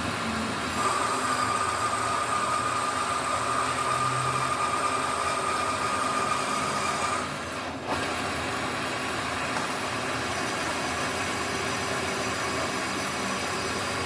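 A workshop machine running steadily, with a high steady tone over its noise for the first half and a brief dip in level about eight seconds in.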